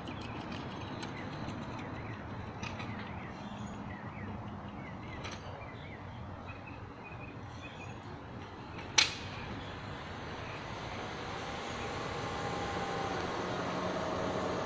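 Outdoor street ambience: a steady low hum of distant traffic that grows louder near the end, with one sharp clack about nine seconds in.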